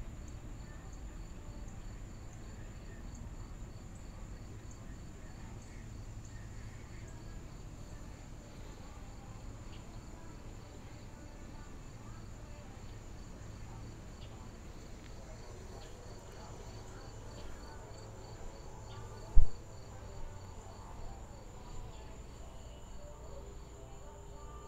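Insects chirping steadily on a summer evening: one continuous high trill and an evenly pulsed chirp a little lower. A single sharp thump about nineteen seconds in, the loudest sound, followed by a few small clicks.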